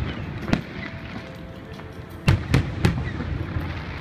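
Aerial firework shells bursting. One bang comes about half a second in, then a quick run of three bangs a little over two seconds in.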